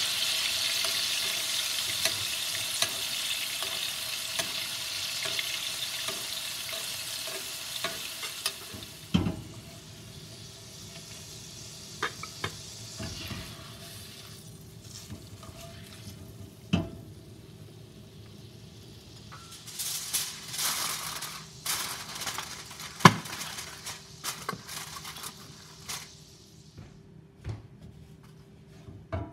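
Steaks sizzling in butter and pan sauce in a cast iron skillet, the sizzle fading after about nine seconds. Then scattered clicks and knocks of utensils, among them wooden chopsticks, against the pan.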